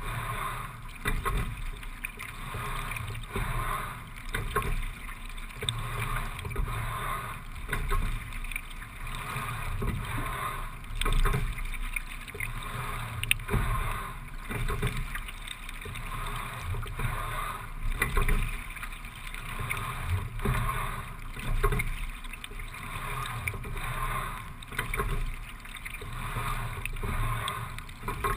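Single racing scull being rowed at a steady low stroke rate of about 17–18 strokes a minute. Water washes along the hull, with repeated clicks and knocks from the rowing, and the level swells and falls every few seconds with the strokes.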